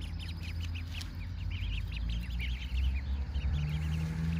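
A group of wild ducklings, about four weeks old, peeping rapidly and continuously while they forage in dug soil, over a low rumble.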